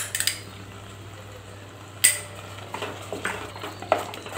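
Wooden spatula stirring and scraping a thick, reduced curdled-milk mixture in a stainless steel pot. A few clicks at the start, a sharp knock against the pot about two seconds in, then a run of scraping strokes.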